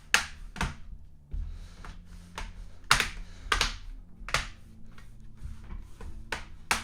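Irregular sharp plastic clicks and taps from handling a laptop, either keys being pressed or parts being handled during reassembly, over a low steady hum.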